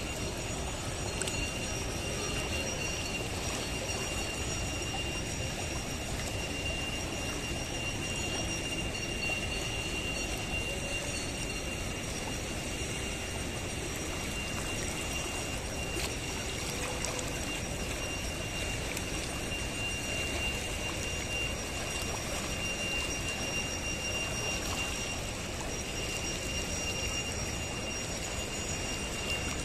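Ganges river in flood rushing over submerged ghat steps: a steady, even rush of fast-moving water, with a steady high-pitched tone above it.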